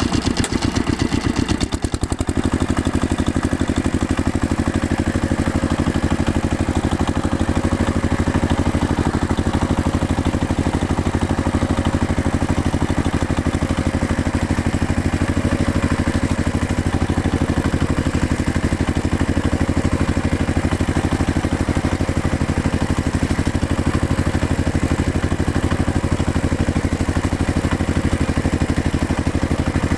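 Farm tractor engine running steadily with an even, rapid firing beat. About two seconds in, the sound dips briefly and settles into a slightly different tone.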